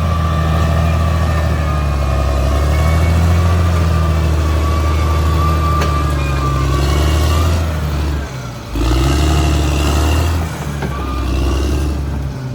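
Caterpillar D6R XL bulldozer running steadily, its diesel engine a loud low hum with a high wavering squeal over it. The engine drops away briefly about eight seconds in, then picks up again.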